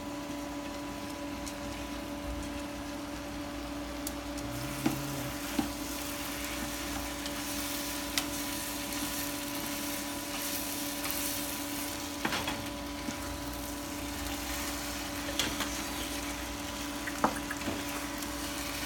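Glass noodles, seafood and vegetables sizzling in a frying pan while being stir-fried, with a wooden spatula and chopsticks clicking against the pan a few times. The sizzle grows louder in the middle, over a steady hum.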